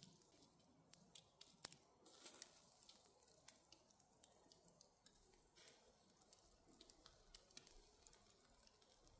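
Near silence with faint, scattered clicks and crackles, several a second, a little busier around two seconds in.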